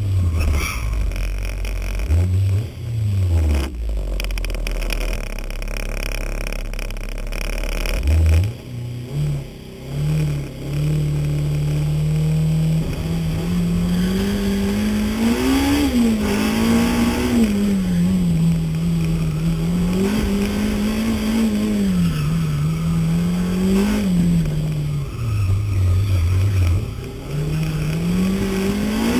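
Honda CRX's VTEC four-cylinder engine under hard driving. It is low and uneven for the first few seconds and rises sharply about a quarter of the way in. After that it revs up and falls back again and again as the car accelerates, brakes and shifts for the corners.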